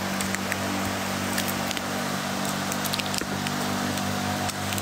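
Steady low hum with an even hiss and a few faint clicks, no voice.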